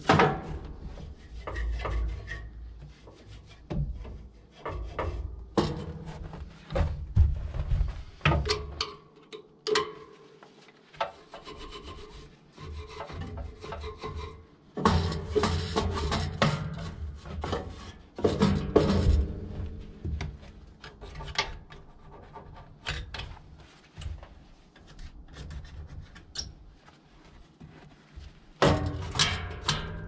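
Hand scraping and rubbing inside the open band wheel housing of a bandsaw sawmill, in irregular strokes with occasional knocks.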